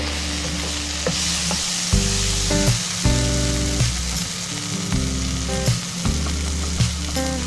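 Food frying in a hot pan, a steady sizzle with a few short clicks, under background music with a slow-changing bass line.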